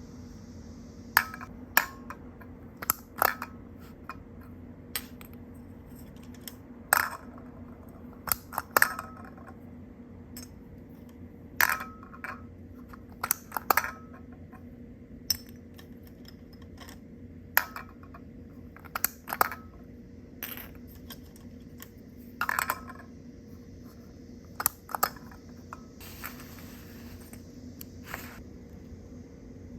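Small hard toy pieces being handled and set down, giving irregular sharp clicks and clinks, some with a short ring, over a faint steady hum.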